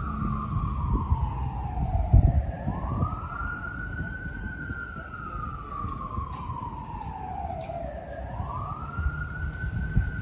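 A siren wailing, its single tone sliding slowly up and down about every six seconds. It sounds over a steady low rumble, with a brief low bump about two seconds in.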